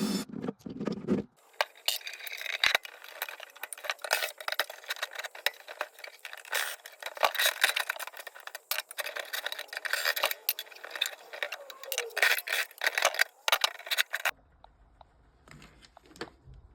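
Busy clatter of metal clinks and rattles as a microwave oven's casing, screws and internal parts are handled and pulled apart, with a few low thuds at the start. It stops suddenly near the end.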